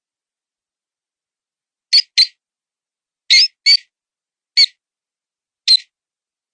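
Mouse distress squeaks used as a predator call: six short, high squeaks in a broken rhythm, the first four in two quick pairs, then two single squeaks, with silence between.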